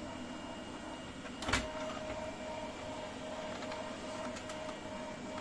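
Brother DCP-1512 laser multifunction printer running a copy job, its print mechanism making a steady mechanical whir. There is a sharp click about a second and a half in, after which a thin steady whine holds. The machine is copying normally, with its 'Scan Unable AF' error cleared.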